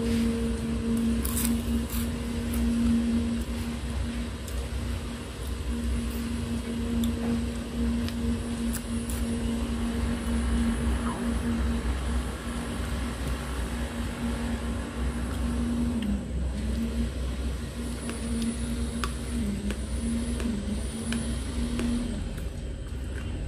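A steady low mechanical hum with a droning tone that dips in pitch briefly a few times near the end. A couple of sharp crunches come about a second or two in, as a fried fryum chip is bitten.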